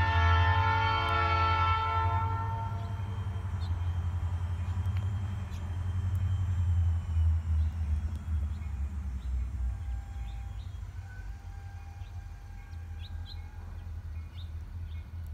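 Huron & Eastern diesel locomotive's horn sounding at the start and fading out within about two seconds, over a low rumble that runs on. Birds chirp in the second half.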